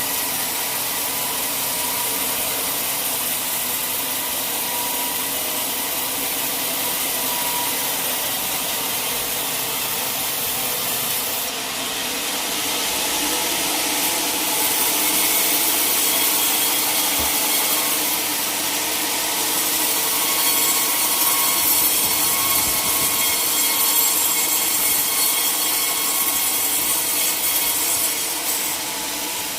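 Powered sawmill saw cutting lengthwise through a log, a continuous hissing and whining cut with a steady hum. It grows louder and harsher about twelve seconds in and eases just before the end.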